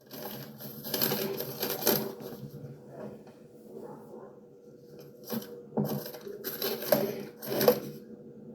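Sheet-metal tool cart being handled: metal drawers sliding and rattling, then several sharp metallic clanks in the last few seconds.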